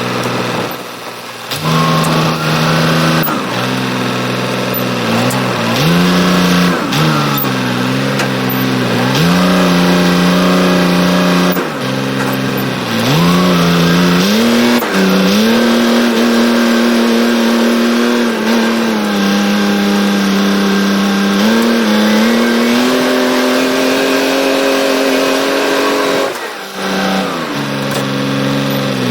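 A vehicle engine running hard, its pitch holding steady and then rising and falling several times as it speeds up and slows.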